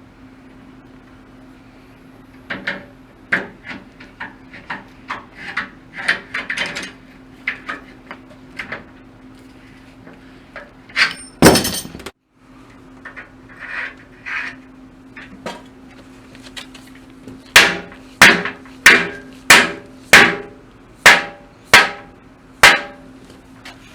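Hammer blows on steel rivet tools working the rivets of Simonds Kodiak saw teeth: scattered lighter taps, one loud crash about halfway through, then about nine hard, evenly spaced strikes in quick succession near the end, over a steady low hum.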